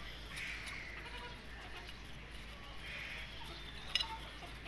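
Young chickens calling twice while pecking at feed, short mid-pitched calls, with a single sharp tap about four seconds in.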